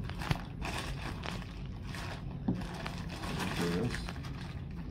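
Plastic bag crinkling and rustling as a lump of clay is pulled out of it.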